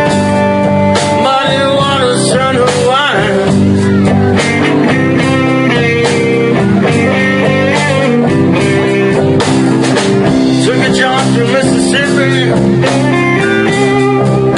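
Live blues-rock band playing: an electric guitar lead with bent notes over keyboard, bass and drums.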